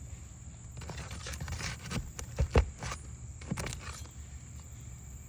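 Scattered knocks and scrapes of a hammer and pry tool working nails out of composition shingles, the loudest knock about two and a half seconds in.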